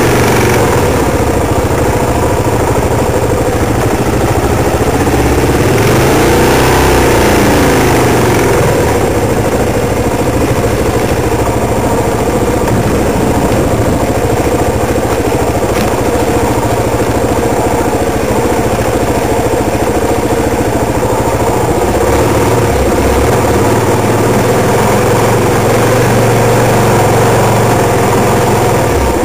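An off-road vehicle's engine running steadily close to the microphone as it is driven along a trail. The engine pitch rises and falls once, about six to eight seconds in.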